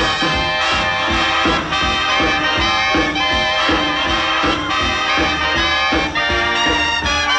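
Band music with brass and a steady beat.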